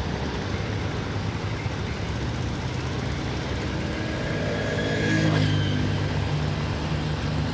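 Constant motor rumble, with one engine's steady hum building from about four seconds in and a brief passing whoosh at its loudest just after five seconds.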